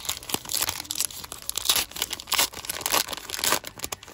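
A baseball card pack's wrapper being torn open and crinkled by hand: a run of irregular crackling and rustling.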